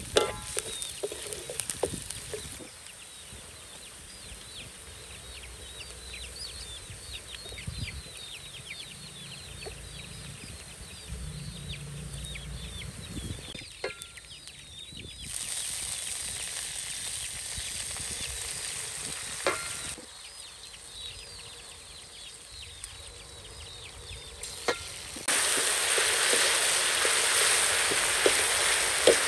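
Food sizzling as it fries in hot oil, coming and going in louder stretches with abrupt changes between them. Short high bird chirps run behind it through the first half.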